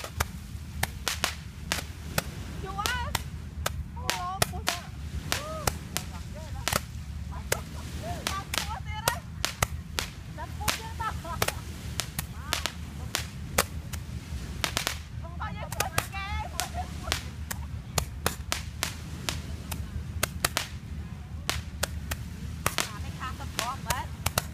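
Handheld fireworks going off: many sharp cracks and pops at irregular intervals, with faint wavering tones between them over a steady low rumble.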